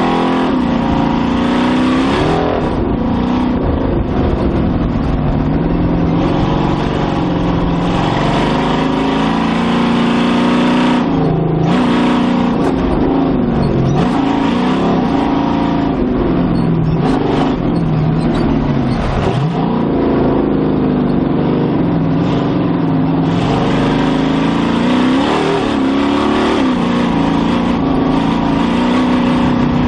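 A 560-horsepower modified Jeep YJ race truck's engine running hard through Dynomax race bullet mufflers, heard on board, its pitch rising and falling again and again as the throttle opens and lifts. It briefly drops off about eleven seconds in before climbing again.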